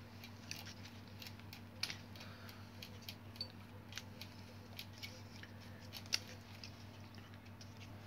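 Screwdriver driving screws into a Philips hair dryer's plastic fan housing: faint, irregular small clicks and scrapes over a steady low hum.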